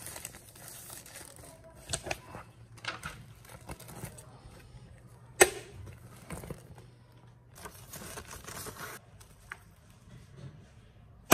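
Rustling and crinkling handling noise with scattered clicks and knocks; the loudest is a single sharp click about five and a half seconds in.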